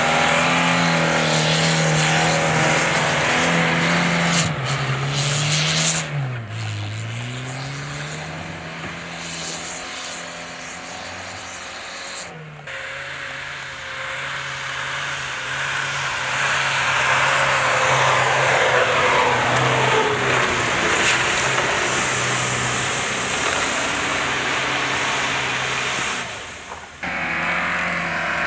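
Four-wheel-drive engines, a Lada Niva's and a JAC T8 pickup's, running under load in deep snow, with the tyres churning through it. About six seconds in the engine note dips and climbs again, and the sound changes abruptly a few times.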